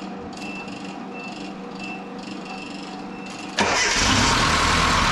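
Nissan KA24E four-cylinder engine firing up and running steadily after sitting a long time. It catches suddenly about three and a half seconds in, after a quiet stretch.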